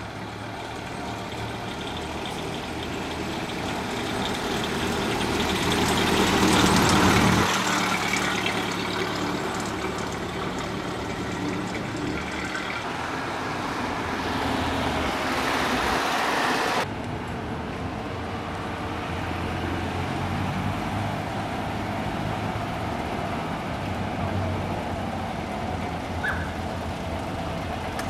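Classic cars driving slowly past one after another on a cobbled street, with engines running and tyres rumbling over the setts. The sound swells to its loudest about seven seconds in and changes abruptly twice.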